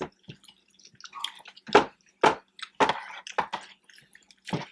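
Close-up mouth sounds of eating rotini pasta in a cheesy sauce: an irregular string of short wet smacks and squelches from chewing, the loudest a little under two seconds in.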